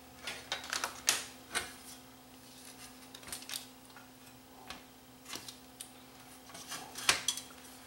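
Scattered light clicks and metallic taps of screws and a sheet-metal board bracket being handled and fitted on an LCD monitor chassis, a few each second early on and sparser later, over a faint steady hum.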